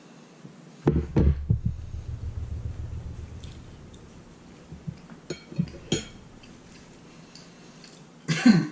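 A fork clinking on a plate and the plate being handled, with sharp clicks about a second in followed by a low rumble for a few seconds and a few light clicks later. A short vocal sound near the end.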